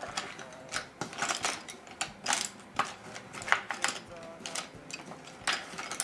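Colored pencils clicking and clattering against one another, in irregular sharp clicks a few times a second, as someone rummages through a set to pick one out.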